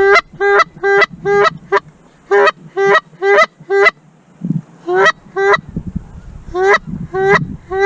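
Canada goose honking: fourteen loud, short honks, each opening with a quick upward break in pitch. They come in a fast run of nine, then two, then three.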